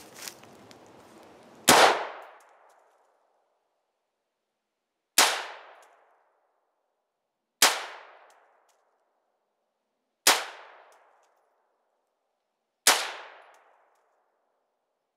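AR-15 rifle fired five times in slow, deliberate shots about two and a half seconds apart, each sharp report ringing out for about a second.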